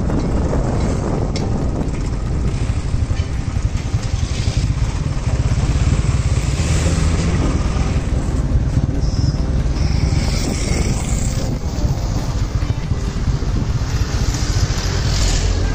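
Steady rumble of a moving vehicle in road traffic, with wind on the microphone and motorcycles and trucks close by.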